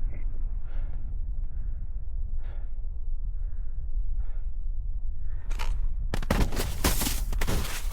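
Wind rumbling on the camera microphone with soft breaths, then about five and a half seconds in a snowboard starts scraping and chattering loudly over hard snow.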